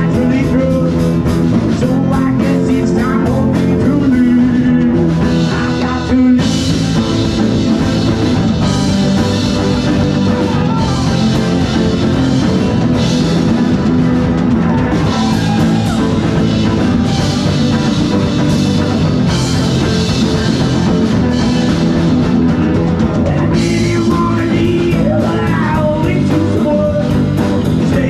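Live rock band playing: acoustic and electric guitars, bass guitar and drum kit, with the cymbals crashing steadily from about six seconds in.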